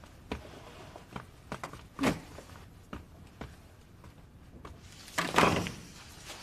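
Footsteps and light knocks and clicks of people moving in a small room, with a room door worked by its handle. A louder swish and knock a little past five seconds in is the door swinging.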